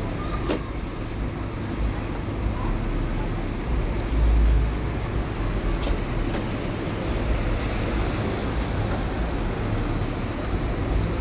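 Steady street traffic noise: a low rumble and hiss, with a brief louder low-pitched surge about four seconds in and a few faint clicks.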